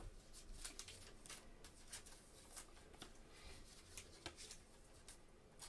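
Faint, scattered clicks and rustles of trading cards being sorted and laid down on a desk mat.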